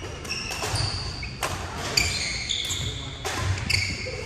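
Badminton rally: athletic shoes squeak sharply and repeatedly on the hardwood gym floor as the players move, and rackets crack against the shuttlecock several times.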